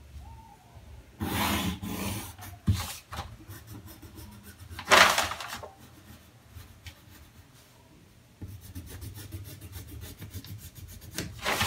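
Kraft pattern paper rustling and rubbing as a plastic set square is shifted over it, with a louder rustle about five seconds in. From about eight seconds in comes a pencil scratching in quick short strokes along the paper as a curved line is drawn.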